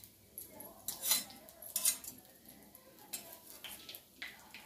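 Kitchen utensils and dishes clinking and knocking in short separate clatters, about six times, the loudest about one and two seconds in.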